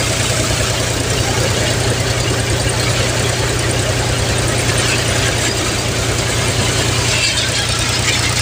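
Mahindra 265 DI tractor's three-cylinder diesel engine running steadily close up, with an even rapid beat and a broad hiss on top, as it drives a groundnut thresher.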